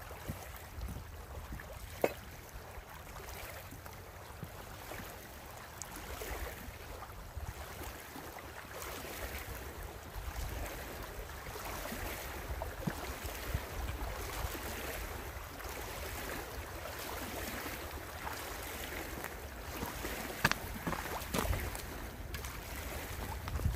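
Small waves lapping at a stony river shore, with wind rumbling on the microphone. A few sharp knocks near the end as the camera rubs against a jacket.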